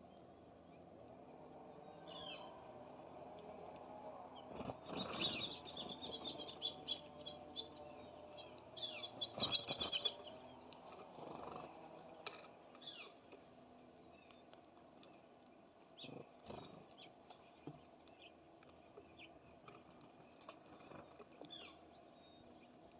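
Small songbirds at a feeder giving scattered short, high chirps, with two louder spells of rapid chirping mixed with sharp taps and clicks, about five seconds in and again around nine to ten seconds in.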